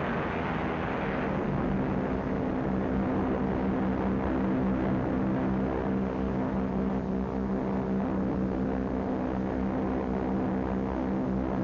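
Steady drone of several piston-engined propeller aircraft running together, an even, unchanging hum, with a hissier rush in the first second.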